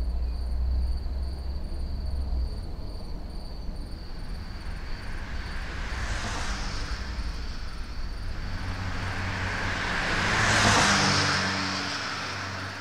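A vehicle passing by: a rushing noise that swells about six seconds in, then rises again to its loudest about ten seconds in and fades, over a low rumble and a steady thin high tone.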